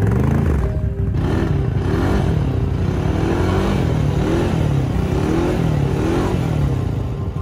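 A vehicle motor revving up and down over and over, its pitch rising and falling about once a second, as a stuck vehicle tries to drive out of loose sand.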